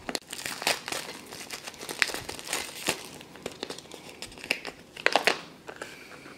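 Thin plastic wrap and a papery label sleeve crinkling as fingers peel them off a small plastic pumpkin-shaped toy box, in irregular crackles with a few louder bursts, the loudest about five seconds in.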